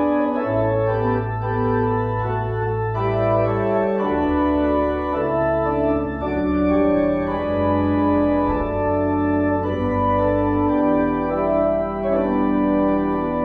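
Organ music: full sustained chords over long held bass notes, the harmony changing every few seconds.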